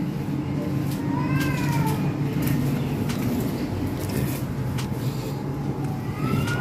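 A cat meowing twice, each a drawn-out call that rises and then falls in pitch, the first about a second in and the second near the end, over a steady low hum.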